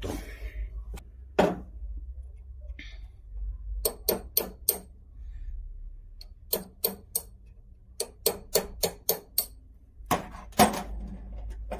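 Light metal-on-metal taps of a hammer on a punch set against a revolver frame screw, to turn a stuck screw whose head is chewed up. The taps come in quick runs of four to seven, with the hardest strikes near the end.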